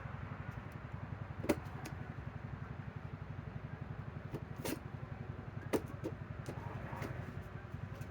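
Cardboard box being handled and worked open by hand: a few short sharp clicks and taps, over a steady low hum.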